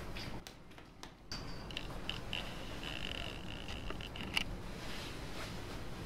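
Faint rustling and light scraping of a suit and tie being adjusted by hand, with a few small clicks, over a steady low room hum.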